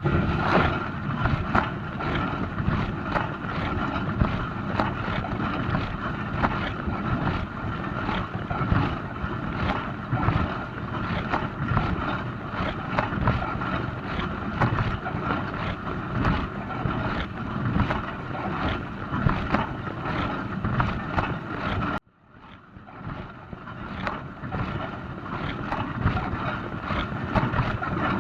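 Dishwasher running its wash cycle: water spraying and splashing inside the tub over a steady pump hum. It starts abruptly, cuts out for an instant about three quarters of the way through, then swells back up over a couple of seconds.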